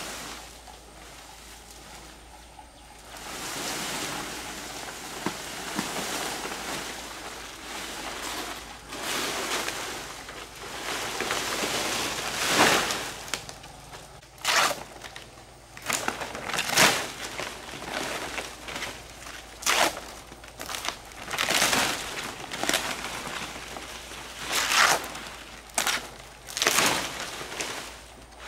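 Dry palm leaves rustling and crackling as they are handled, with a dozen or so sharp, short swishes at irregular intervals over a steady rustle.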